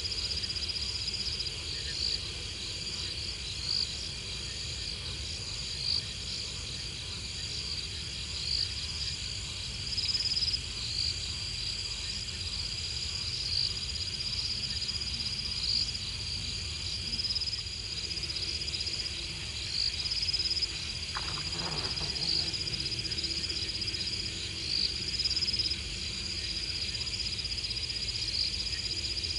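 Night chorus of calling insects and frogs: a steady high-pitched trill with short chirps repeating every second or two over it, and a low rumble beneath.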